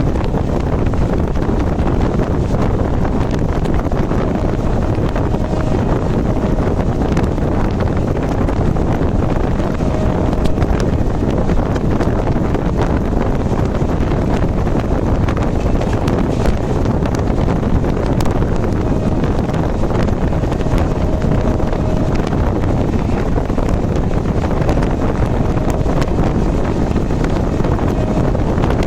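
Steady, loud wind rush and rumble buffeting the microphone, with faint short tones a few times.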